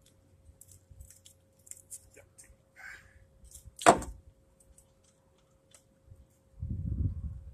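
A roll of duct tape set down on a car's sheet-metal radiator support, one sharp knock about four seconds in, among faint rustles and clicks. Near the end a low rumbling noise starts and continues.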